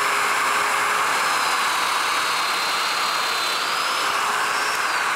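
Festool Domino joiner running steadily as it plunges a mortise into a walnut leg blank: a high motor whine over rushing air, the pitch sagging under the cut and recovering a little past halfway.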